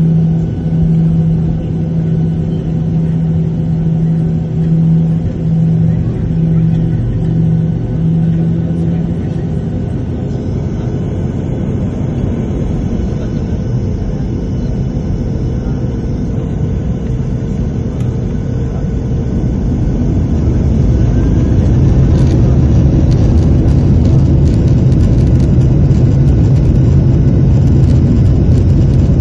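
Boeing 737 jet airliner's engines and airframe rumbling during takeoff, with a steady hum over the first several seconds; about two-thirds of the way through the rumble swells louder and stays strong, as with engines at takeoff power on the roll.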